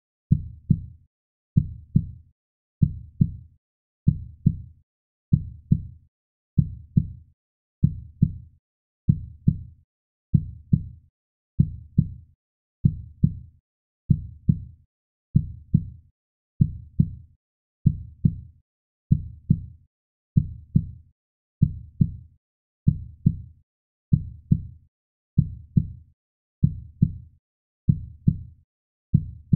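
Heartbeat sound effect: a steady rhythm of low double thumps (lub-dub), one pair about every 1.3 seconds.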